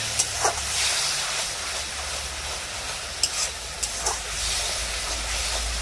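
Spiced onion-and-ginger masala sizzling in hot oil in a steel kadai, a steady hiss with a few faint ticks and pops. The masala is at the frying stage where the oil begins to separate from it.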